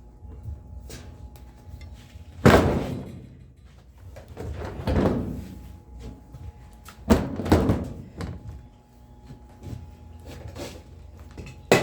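Knocks and thumps from a top-loading washing machine's top cover being pressed and knocked down to seat it, with one side not clicking into place. There is a loud knock about two and a half seconds in, a longer one around five seconds, a pair near seven and a half, and one more just before the end.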